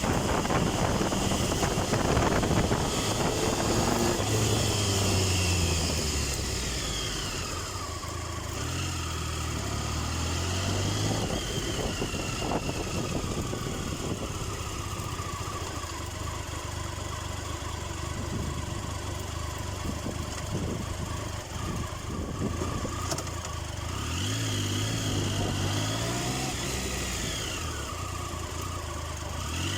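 Triumph Tiger 1050's inline-three engine pulling under a rider, its revs rising and falling several times with the throttle, with a long stretch of lower, steady revs in the middle. Wind rushes over the microphone throughout.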